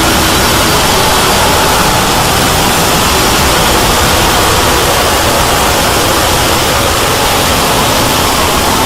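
Loud, steady hiss of noise, like static, spread evenly from low to high pitch, with a few faint steady tones under it.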